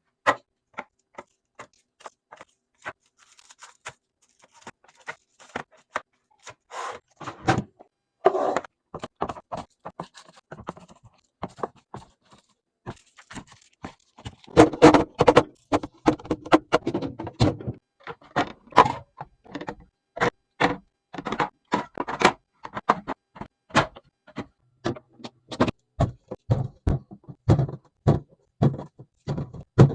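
Many quick clicks, knocks and thunks of containers and packaging being handled and set down while a fridge is restocked, with stretches of rustling and scraping.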